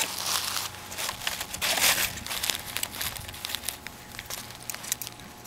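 Small clear plastic zip bags crinkling as they are handled, in irregular crackles that are loudest about two seconds in and then thin out.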